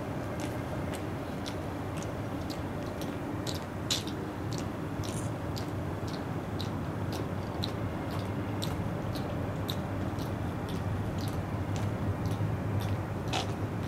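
Footsteps of a colour guard marching in step, sharp clicks at about two a second, over steady outdoor background noise.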